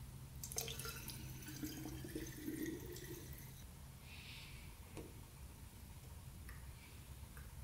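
Engine coolant trickling faintly through a metal funnel into a quad's radiator filler neck, with a few light clicks in the first few seconds.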